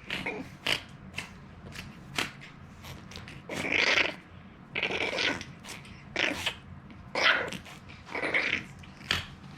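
French bulldog puppy making noisy, breathy snuffles: about five rough breaths, each under a second, with small clicks and smacks in between.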